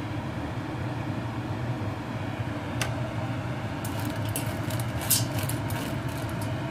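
Spatula stirring dry dark chocolate chips in a stainless steel bowl set over heat for melting: scraping and clicking against the metal, starting about four seconds in, over a steady low hum.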